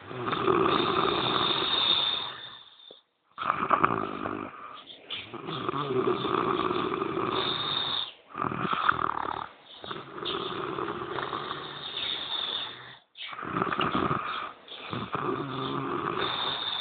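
A man snoring: a string of snores, each one to three seconds long, separated by brief pauses for breath.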